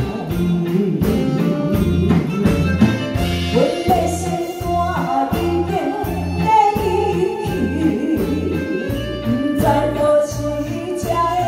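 A woman singing a ballad into a microphone over live band accompaniment, with a steady bass beat about twice a second.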